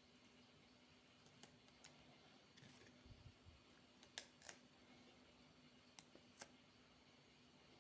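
Near silence with a faint steady hum and a few faint sharp clicks, two of them in quick pairs about four and six seconds in.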